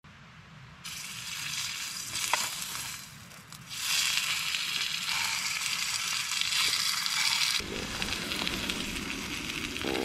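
Sirloin steak sizzling as it fries over a small camping burner, a steady hiss that grows louder about four seconds in.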